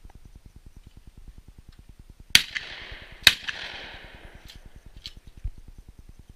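Two shotgun shots a little under a second apart, each followed by an echo that trails off, with a few faint clicks after.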